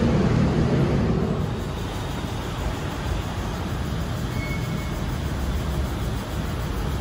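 BTS Skytrain elevated electric train running, heard from on board as a steady low rumble, louder in the first second or so and then settling to an even level.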